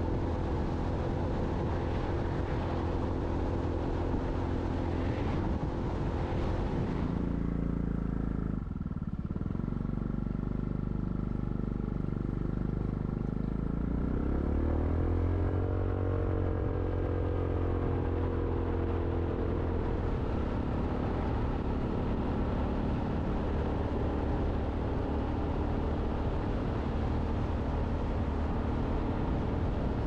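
Motorcycle engine running under way. The engine note dips briefly about a third of the way in, then climbs in pitch as the bike speeds up and holds a steady cruise.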